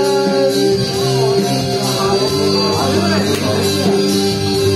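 Karaoke backing music playing, with a held sung note through the microphone ending about half a second in and a voice coming over the microphone around the middle.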